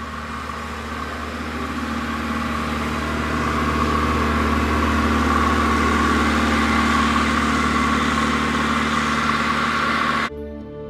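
A vehicle engine running steadily under a rushing noise, growing a little louder over the first few seconds. It cuts off abruptly near the end and gives way to soft music.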